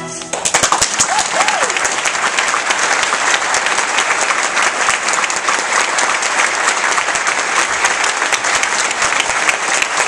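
An orchestra and violin end on a held final chord that cuts off just after the start, and a concert audience breaks into steady applause for the rest.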